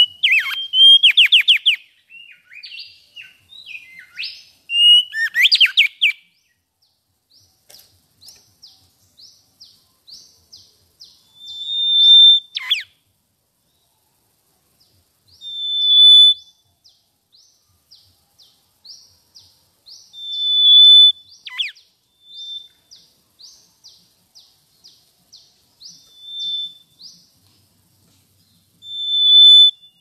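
Male mangrove whistler singing: a burst of rapid, varied whistled phrases for the first six seconds, then single loud clear whistles every three to five seconds, two of them ending in a sharp downward glide. Under them runs a string of fainter quick chirps, about two a second.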